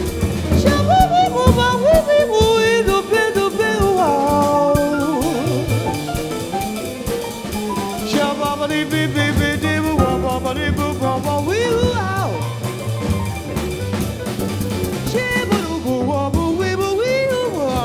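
Live jazz: a female singer with a band, her voice gliding through melodic phrases over a drum kit.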